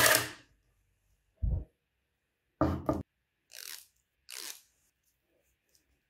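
Metal motor and transformer parts being handled on a workbench: a loud steady noise dies away in the first half second, then a low thump, a sharper double knock and two short scraping sounds.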